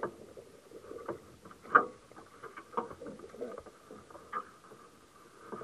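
Water slapping and splashing against the side of a small fishing boat, with scattered knocks and clicks. The loudest knock comes a little under two seconds in.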